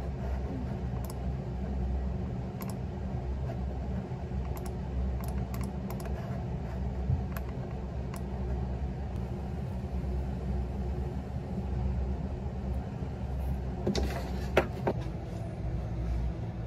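Laptop keyboard keys and a computer mouse clicking: sparse taps through the first half, then a quick run of keystrokes about 14 seconds in, over a steady low hum.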